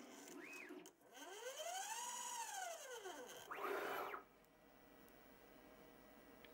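Stepper motor of a DIY CNC micro lathe's axis drive making a rapid move: a whine that rises in pitch and falls away again over about two seconds, after a short blip of the same kind near the start. A brief, louder rushing noise follows about three and a half seconds in.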